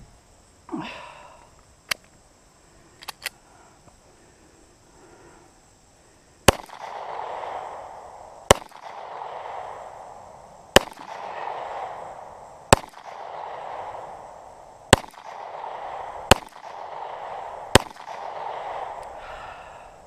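Walther P22 .22 LR pistol firing seven shots, about one and a half to two seconds apart, each crack followed by a short echo. Every round goes off, so the freshly replaced firing pin is striking reliably. A few small metallic clicks come before the first shot.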